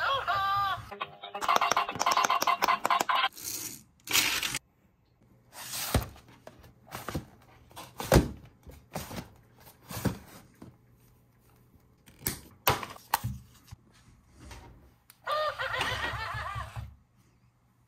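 Toys and packaging handled by hand: scattered clicks, taps and knocks. They fall between short stretches of an electronic toy voice, one in the first three seconds and another about fifteen seconds in.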